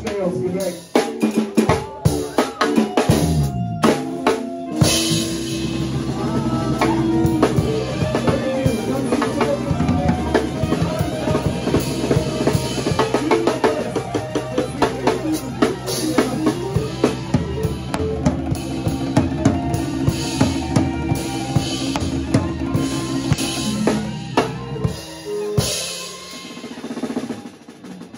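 Live funk band with drum kit, bass and guitars. A falling bass line over sparse drum hits gives way, about five seconds in, to a long held chord under busy drumming. The chord drops out near the end, leaving a few drum hits.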